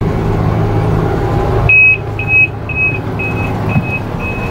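Diesel freight locomotive running steadily with a low hum. About a second and a half in, a high electronic beep sounds six times, about two a second, each fainter than the last.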